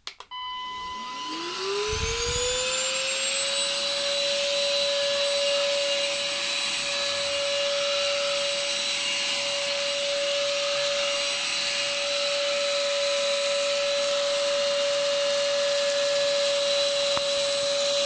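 SilverCrest SHAZ 22.2 C3 cordless stick vacuum switched on with a click, its motor whine rising in pitch over about three seconds as it spins up and then running steadily.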